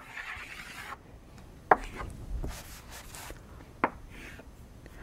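Chalk drawing long curved strokes on a chalkboard, scraping in stretches, with a few sharp taps where the chalk strikes the board.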